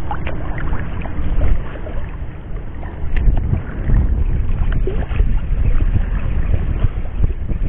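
Heavy wind buffeting on the microphone, with water sloshing around a person wading in shallow sea water.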